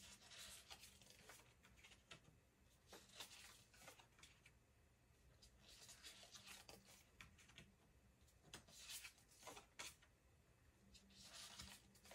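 Faint papery swishes of tarot cards being slid off a deck and laid onto a pile, about five soft rustles two to three seconds apart.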